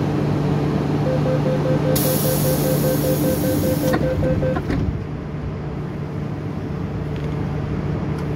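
MTR M-Train door-closing sequence: a rapid beeping warning for about three and a half seconds, a loud hiss for about two seconds in the middle of it, and a knock as the doors shut near the end of the beeping. Under it the train hums steadily at the platform.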